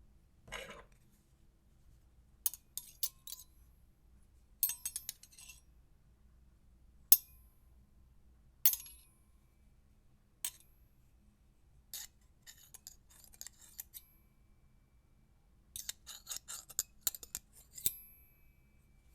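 Metal cutlery clinking and clattering on a plate: scattered single sharp strikes with a brief high ring, mixed with short rattling runs of quick clinks, the busiest near the start and again towards the end.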